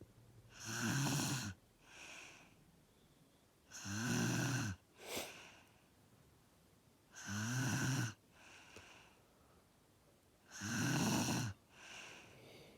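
A sleeping man snoring heavily: four loud snores, each about a second long, come roughly every three and a half seconds, with a softer breath between each.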